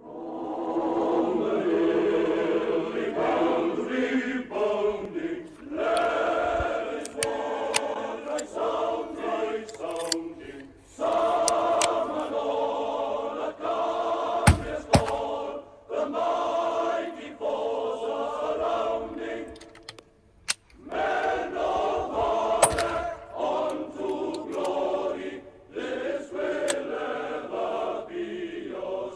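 A choir singing as background music. A sharp rifle shot cuts through about halfway in and another about three-quarters of the way through, from single-shot Martini-Henry rifles.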